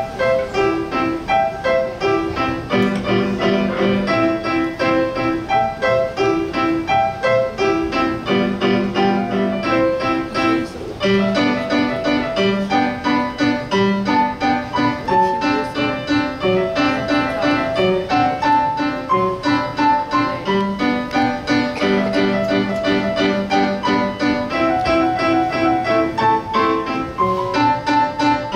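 Solo piano piece played as a quick, even stream of notes.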